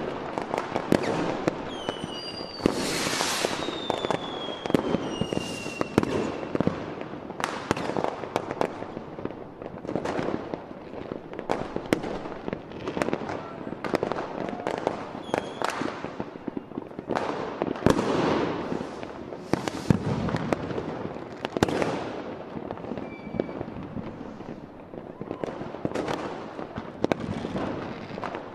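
Fireworks display: a dense run of shell bursts and bangs with crackling, and a few whistles falling in pitch, the clearest about three seconds in.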